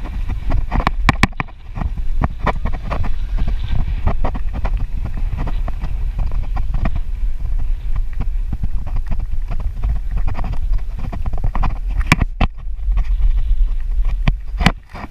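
Wind buffeting the microphone of a camera on a moving bicycle: a steady low rumble, with frequent small knocks and rattles from the bike on the road. There are two sharper knocks near the end.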